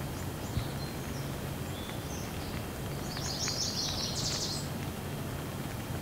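Steady rush of a shallow stream running over rock, with a waterfall behind. About three seconds in, a bird gives a brief, high, rapid trill over the water.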